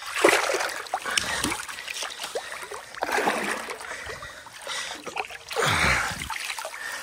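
River water splashing and sloshing in about four separate bursts, with knocks of wood, as wooden stakes of a fish fence are pulled up out of the riverbed and tossed.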